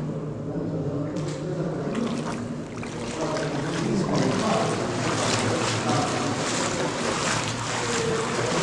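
Shallow water running along the floor of a concrete tunnel, echoing. Rubber boots splash through it, more often from about halfway.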